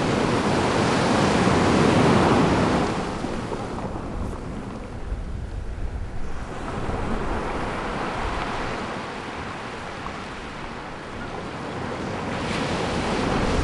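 Ocean surf breaking and washing up a beach, the noise of the waves swelling and easing: loudest in the first few seconds, dropping back through the middle, and building again near the end.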